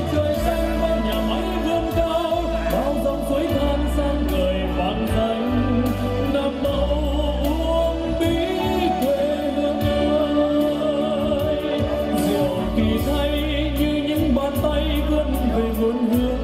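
A male singer singing a Vietnamese song live into a microphone over a backing track with bass and percussion.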